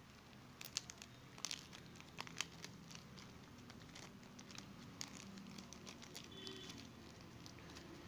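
Faint crinkling and crackling of a clear plastic bag being opened and handled by hand, with scattered sharp crackles that are most frequent in the first few seconds.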